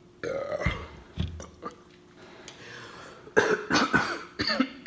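A woman coughing and clearing her throat: a throaty sound near the start, then a loud run of coughs about three and a half seconds in.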